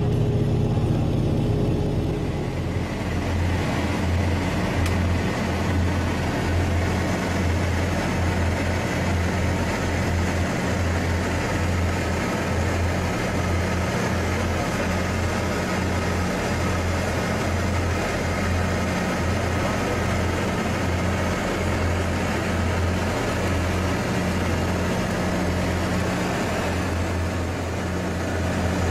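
Lockheed L-1049 Super Constellation's Wright R-3350 radial piston engines and propellers droning steadily in cruise, heard inside the aircraft. The low drone pulses slowly and regularly and drops slightly in pitch about two and a half seconds in.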